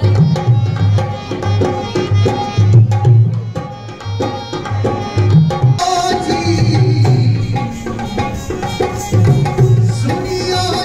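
Rajasthani folk music: a hand drum plays a quick, driving rhythm. About six seconds in, a brighter melodic part comes in over the drumming.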